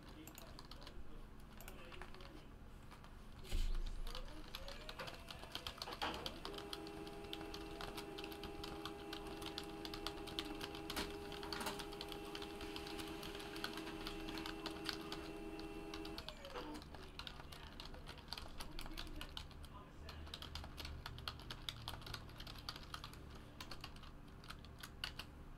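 Computer keyboard typing and mouse clicks throughout, with a thump a few seconds in. From about six seconds in to about sixteen, a Samsung M2020 laser printer runs with a steady hum that winds up at the start and winds down at the end.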